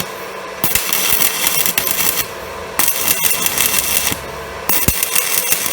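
Stick-welding arc from a UONI 13/55 basic-coated electrode being struck again and again on steel plate: three runs of loud arc crackle, each a second or so long, broken by short gaps where the arc goes out. It is a re-striking test of a used electrode, which lights better when scratched against the plate than when touched to it.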